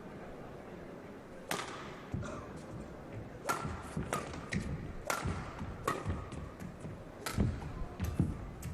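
Badminton rally: sharp cracks of rackets striking the shuttlecock, starting about a second and a half in and coming roughly every second, with players' footsteps thudding on the court.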